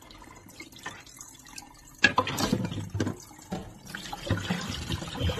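Water dripping and draining from rinsed canned fruit cocktail in a stainless steel sink. About two seconds in it turns louder, with irregular clattering and splashing as the metal strainer of fruit is handled.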